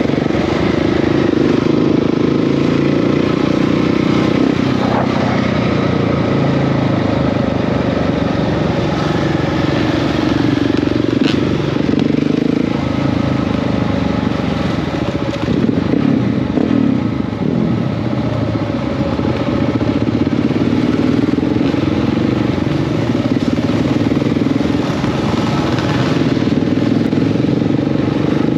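Dual-sport motorcycle engine running steadily under way, its pitch rising and dipping slightly with the throttle.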